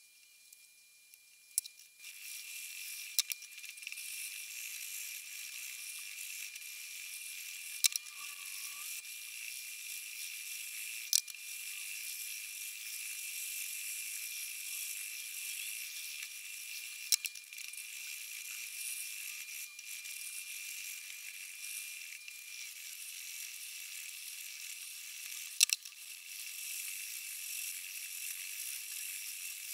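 Kitchen knife blade being sharpened on a 400-grit diamond stone: a steady high-pitched hiss of the steel rubbing across the diamond plate, starting about two seconds in, with a few sharp clicks every several seconds.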